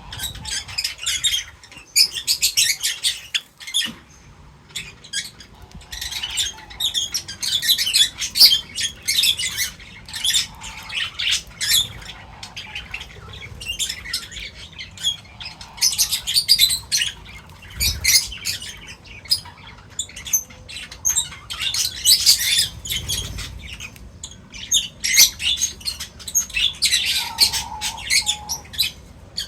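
A flock of small birds chirping and chattering at a feeder: bouts of many quick overlapping high calls, each lasting a second or two, with short pauses between them.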